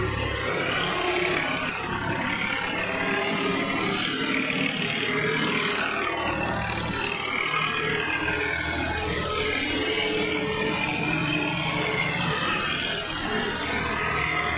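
Tractor engine running steadily as the tractor drives, heard close up from the driver's seat; the deepest rumble eases about half a second in.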